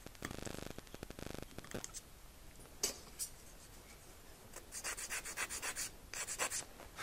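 A small blade scraping and shaving a plastic servo horn to cut away its collar. There is a rasping scrape for the first two seconds, then two light clicks, then quick runs of short, hissy scraping strokes in the second half.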